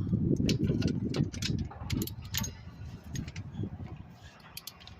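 Hand ratchet with a 14 mm socket clicking and metal clinking while loosening a brake caliper bolt, with irregular sharp clicks and a denser clatter in the first two seconds.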